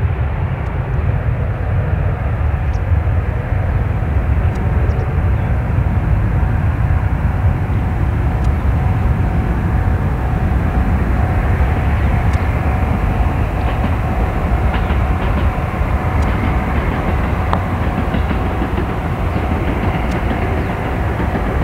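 Boeing 737-800's twin turbofan engines at takeoff power through the takeoff roll and lift-off: a loud, steady deep rumble, with a faint steady whine joining it about a third of the way in.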